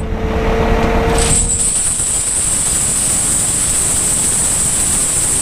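Steady, loud machine noise with a low rumble. A constant high whine sets in about a second in.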